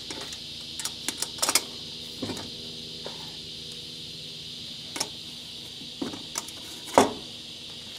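Scattered light metal clinks and knocks, a quick cluster of them early and single ones later, as a metal mess-kit pot, its stove windscreen and a knife blade are handled. Under them runs a steady high chirring of insects.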